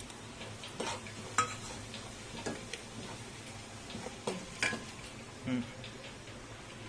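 Crushed spices and chilli flakes sizzling in hot oil in a pan, while a steel spoon stirs them. The spoon scrapes and knocks against the pan about six times.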